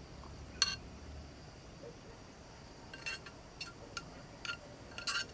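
Light metallic clinks of a utensil against a small camping cook pot as noodles are served out onto plates: one sharp clink about half a second in, then a run of quicker, lighter clinks over the last two seconds.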